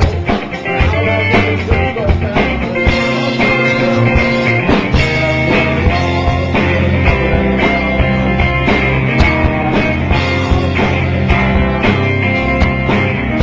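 A rock band playing a song together: electric guitar and bass over drums keeping a steady beat.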